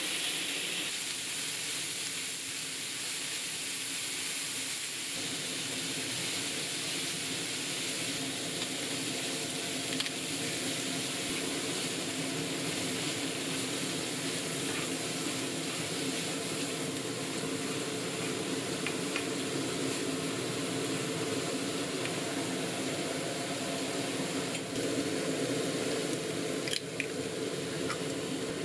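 Shredded cabbage and bacon sizzling steadily as they are stir-fried in a nonstick frying pan and turned with wooden chopsticks. There are a few sharp clicks near the end.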